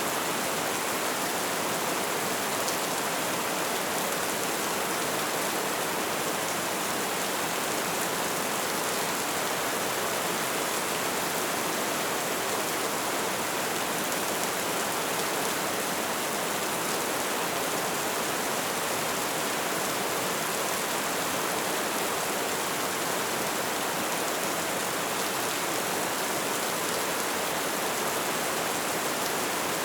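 Light rain falling steadily, an even hiss of many small drops with no let-up.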